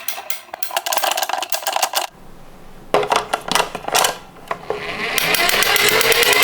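A die-cast toy minicar rolling on a hard plastic slope track: a fast rattle of small wheels, a few sharp clicks in the middle, then a steady rolling rattle that grows louder near the end.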